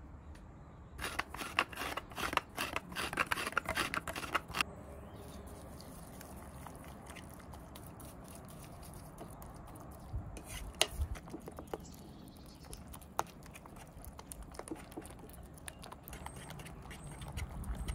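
A metal fork mashing and stirring a wet egg-and-feta mixture in a wooden bowl. A dense run of scraping clicks lasts a few seconds near the start, then scattered taps and scrapes of the fork against the bowl follow.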